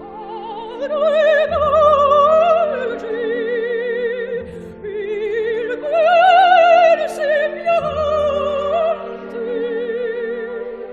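Operatic singing with a wide vibrato, in several long held phrases over sustained orchestral accompaniment.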